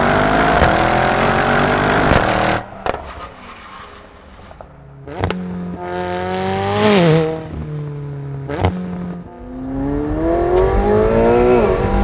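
Mercedes-AMG E63 S wagon's twin-turbo V8 accelerating hard, its pitch rising, then breaking off after about two and a half seconds. A McLaren 720S Spider's twin-turbo V8 follows, running with one sharp dip in pitch midway, then accelerating again with rising pitch near the end.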